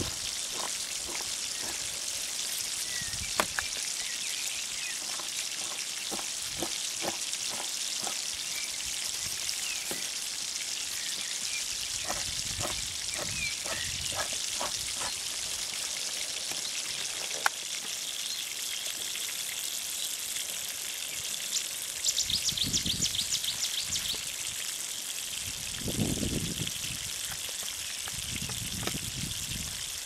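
Steady hiss of flowing water, with scattered faint clicks and a short burst of rapid ticking about three quarters of the way through.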